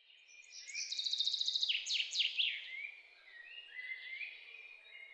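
Birds singing: a fast trill and quick falling sweeps about two seconds in, then short rising chirps, over a faint steady background noise.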